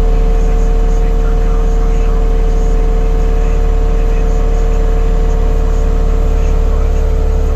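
John Deere 325 skid steer's diesel engine running under load, driving a Jenkins hydraulic stump grinder: a loud, steady drone with a steady high whine on top and a scatter of crackle.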